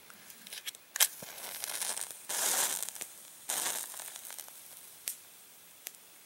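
A homemade super match, three matches taped together with dryer lint and Vaseline, struck on a matchbox: a sharp strike about a second in, then the match heads flare with a loud fizzing hiss, a second shorter flare a second later, settling to a quieter burning hiss with a couple of small pops.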